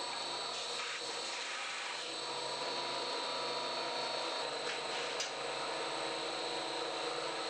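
Belt grinder running steadily with a constant high whine and a low hum. At first, small steel parts are being ground against its abrasive belt.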